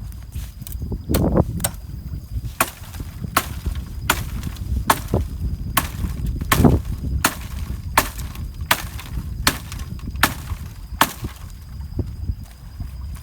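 Sharp knocks repeating evenly, a little more than once a second, over a low rumble.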